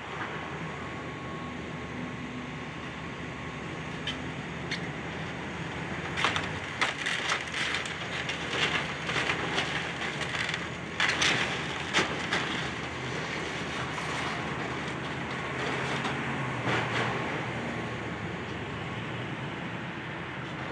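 Demolition excavator's diesel engine running steadily. A run of sharp cracking and crunching as building debris is broken comes about six to thirteen seconds in, loudest near the middle.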